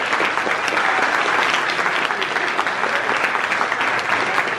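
Crowd of party supporters applauding steadily, with a few voices cheering.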